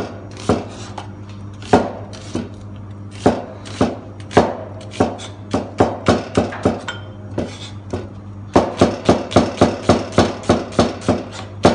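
Large chef's knife slicing onions on a plastic cutting board: sharp knocks of the blade hitting the board, scattered at first, then a quick steady run of about three to four a second for the last few seconds. A low steady hum runs underneath.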